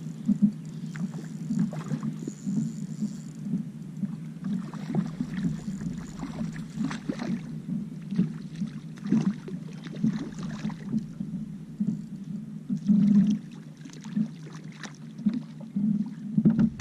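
Fishing kayak on the water: a steady, pulsing low rumble of wind and water against the hull, picked up by the boat-mounted camera, with scattered light clicks and knocks.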